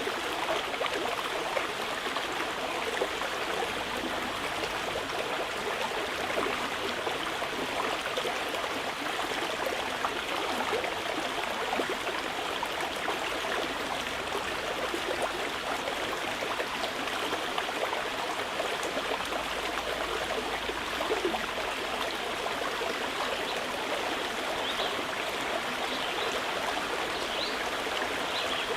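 Mountain river flowing with a steady rushing and gurgling of water over rocks.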